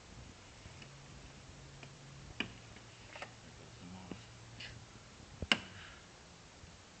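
A few scattered sharp plastic clicks and snaps from a BMW E90/E92 kidney grille's retaining tabs as the grille is worked loose from the bumper by hand, the loudest snap about five and a half seconds in.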